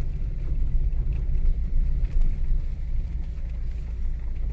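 A car driving over a broken-up asphalt road, heard from inside the cabin: a steady low rumble of engine and tyres.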